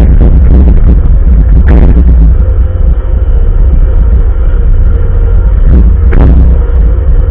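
Bobcat loader's diesel engine running with a heavy, steady rumble and a faint steady whine, while plowing snow. Two brief surges of rushing noise come through, about two seconds in and again near the end.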